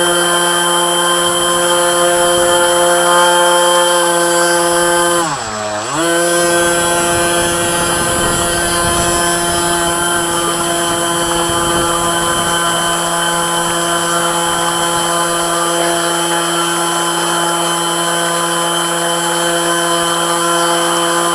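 Model boat's HK 2842 water-cooled brushless electric motor whining steadily at speed. About five seconds in, it slows sharply and spins back up within a second.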